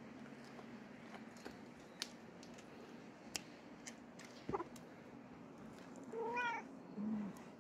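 Domestic cat meowing: one rising-then-falling meow about six seconds in, followed by a short, lower mew. A few light taps come earlier.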